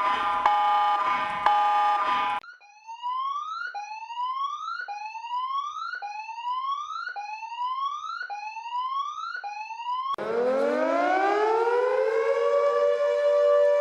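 A pulsing electronic alarm tone cuts off about two seconds in. An electronic alarm then sounds a rising 'whoop' sweep six times, about one every 1.2 seconds. About ten seconds in, a civil defence siren winds up in pitch and settles into a steady two-note tone.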